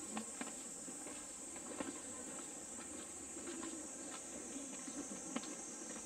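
Footsteps of people walking, a scatter of irregular short clicks, over a steady high-pitched hiss.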